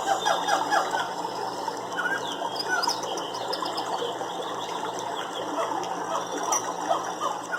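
Many birds chirping and calling at once: a dense, continuous chorus of short, overlapping chirps.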